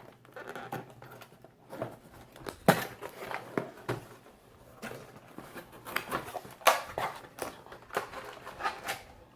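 Plastic packaging being opened and handled: crinkling and rustling with sharp clicks and knocks, the loudest about three seconds in and again near seven seconds.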